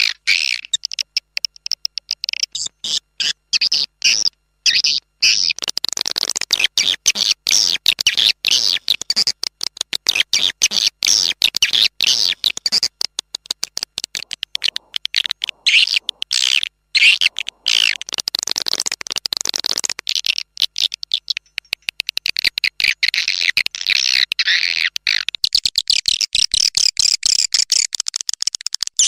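Swiftlet calling sound: a dense, continuous run of rapid, high chirps and twitters, broken by many short gaps. This is the call used to lure edible-nest swiftlets to a bird house.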